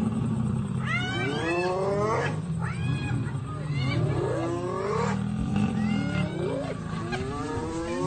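A clash between a spotted hyena clan and lions: many hyenas give rising, squealing cries, about one a second, over the low growling of lions.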